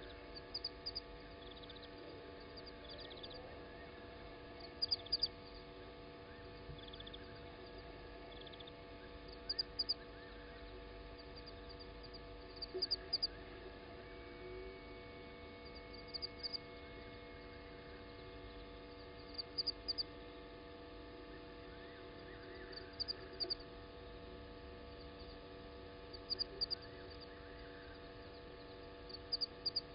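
Short high-pitched chirps in quick groups of two to four, repeating about every three seconds, from a night-calling animal in the bush, over a steady electrical hum.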